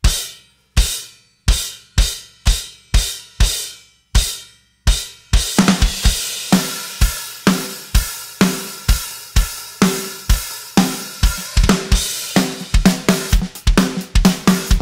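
Drum kit played alone, with no other instruments: first a string of single accented hits on cymbal and bass drum, each left to ring out. About five seconds in, a full, busy groove starts under a steady wash of cymbals.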